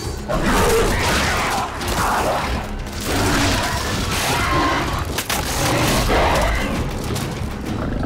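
Action-film soundtrack: a dense mix of score and sound effects with booming hits as the creature attack builds.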